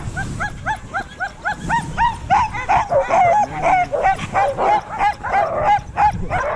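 Harnessed sled dogs yipping and barking in short, rising-and-falling yelps, about four a second at first, then several dogs joining in overlapping calls from about two seconds in. It is the excited clamour of a hitched team eager to start running.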